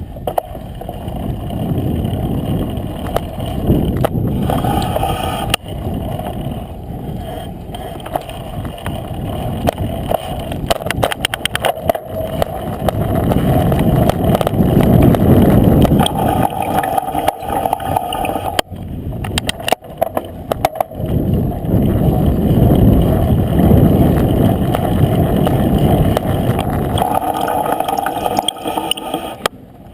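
Jamis Trail X2 bicycle rolling with its front brake being applied on and off, the brake giving a rough, uneven noise with a mid-pitched tone that comes and goes and spells of rapid ticking; the braking doesn't feel smooth, unlike the rear brake.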